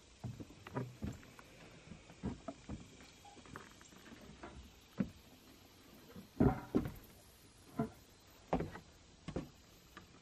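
Irregular short knocks and clicks, a few close together at times, with the loudest about six and a half seconds in.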